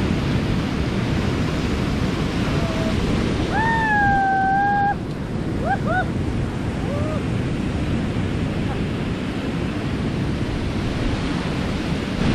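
Surf breaking and washing over a rocky shore, with wind buffeting the microphone. About four seconds in comes one long held call, followed a couple of seconds later by a few short rising calls.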